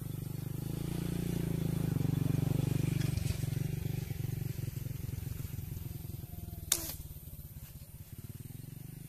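A motorcycle engine running past, growing louder to a peak about two seconds in and then fading away. A single sharp click cuts in about two-thirds of the way through.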